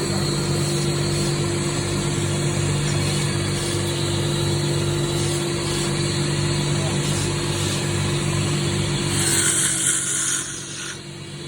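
Electric motor of a wood-turning lathe running with a steady hum while chess pieces are turned. About nine seconds in comes a louder hissing scrape of a cutting tool against the wood, after which the sound drops.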